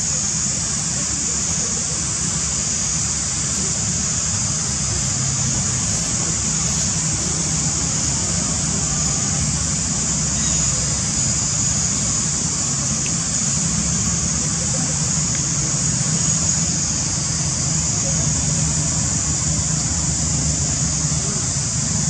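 Steady, high-pitched insect chorus droning without a break, over a low steady rumble.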